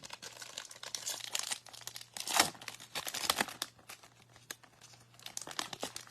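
Foil wrapper of a trading card pack being torn open and crinkled: a run of crackling rustles, loudest about two and a half seconds in.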